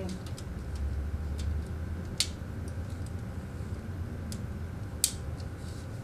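Category 6 data jacks snapping into a patch panel's faceplate frame: light plastic ticks and two sharp clicks, about two seconds in and about five seconds in, over a low steady hum.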